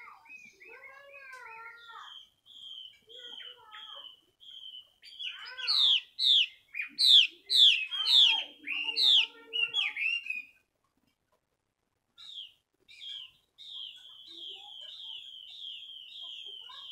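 Chinese hwamei calling with loud whistled notes: short repeated whistles at first, a loud stretch of sweeping, slurred whistles in the middle, then after a short pause a quick run of repeated downslurred notes.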